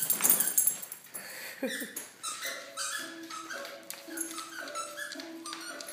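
Scottish terriers at play, with a brief high-pitched burst right at the start and a short whine from one dog about a second and a half in.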